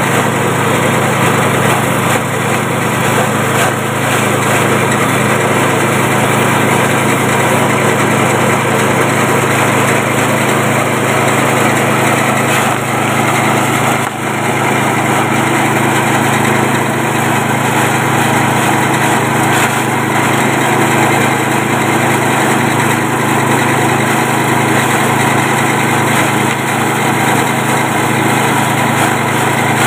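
Small 6.5 hp engine running steadily under load, driving a grass chopper as green grass stalks are fed in and cut. The sound dips briefly about fourteen seconds in.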